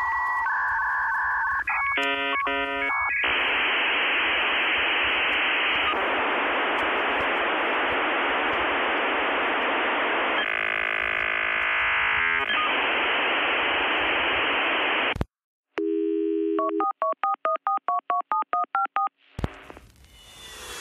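Telephone-line sounds: a steady dial tone, then a quick run of touch-tone dialing, then a long stretch of telephone-line hiss. After a brief break comes a low steady tone and a rapid series of alternating beeps.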